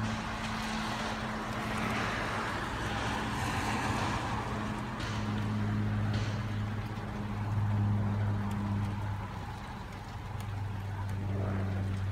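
A steady low engine drone that fades in and out, joined by a broad rushing noise that swells over the first few seconds.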